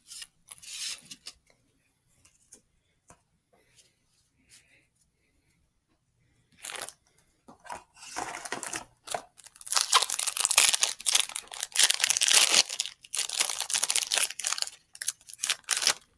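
Yu-Gi-Oh! booster pack wrapper being crinkled and torn open: a few light crinkles at first, then a run of loud rustling tears from about seven seconds in, loudest around the tenth to fifteenth second.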